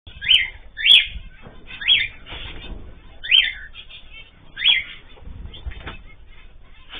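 Caged pet birds calling: five loud, short, sharp calls spread over the first five seconds, with softer chirping and chatter between them.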